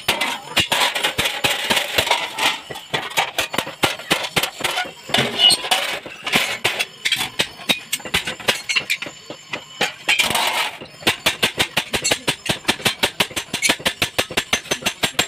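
Metal being struck again and again in quick, sharp blows, like a hammer working sheet steel. The blows are irregular and crowded at first, then settle into an even beat of about five a second from about two-thirds of the way in.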